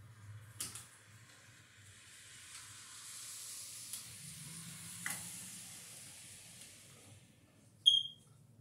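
Hands working wires in a wall electrical box at a thermostat: a faint rustling scrape for several seconds with a few sharp clicks, then one short high squeak near the end, the loudest sound.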